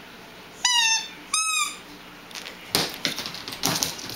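Pink rubber squeaky ball squeezed twice, about a second in and again half a second later, each squeak a short falling tone. From about two and a half seconds in, a run of clicks and clatter as the dog runs across the hardwood floor after it.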